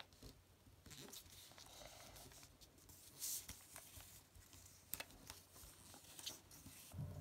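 Faint rustling and soft scraping of heavy 120 g A4 paper being folded and pressed flat by hand, with a few small clicks and a brief louder rustle about three seconds in.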